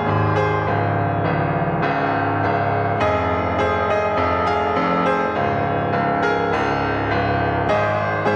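Background piano music, notes struck in a steady flowing run.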